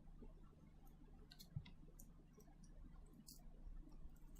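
Near silence with a few faint, short clicks and ticks as the smartphone's small parts are handled.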